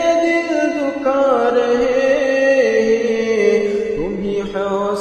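A man singing an Urdu naat, holding long drawn-out notes that bend and slide between pitches, stepping down about two and a half seconds in.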